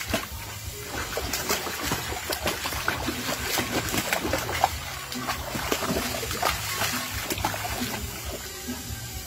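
Water splashing and sloshing in a shallow tank as a dog thrashes about in it, irregular and continuous, over background music.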